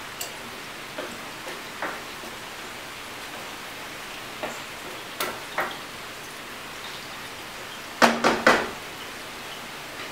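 Tofu and ground chicken sizzling steadily in a stainless steel wok over a gas flame, with light scrapes and taps of a wooden spatula against the pan. About eight seconds in, three loud knocks of the spatula on the wok, the pan ringing briefly.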